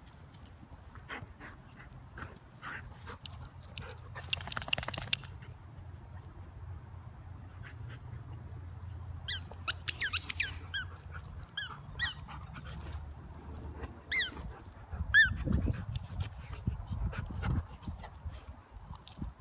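A dog playing on grass with rustling and scuffing. About halfway through, and again a few seconds later, comes a run of short, high squeaks that fall in pitch. A low thump near three-quarters of the way through is the loudest sound.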